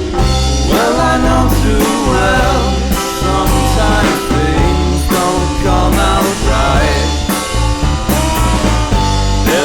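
Rock band song: a singing voice over a steady drum beat and bass line.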